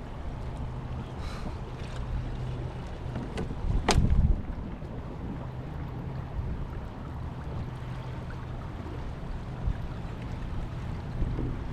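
Water sounds around a fishing kayak, with wind on the microphone and one sharp knock about four seconds in.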